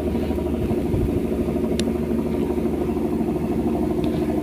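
A fishing boat's engine running steadily at an even speed, with a brief click a little under two seconds in.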